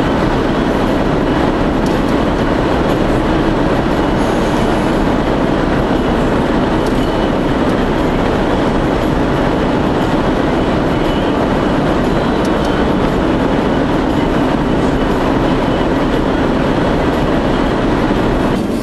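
Steady road and engine noise inside a moving car's cabin, a constant drone with no breaks.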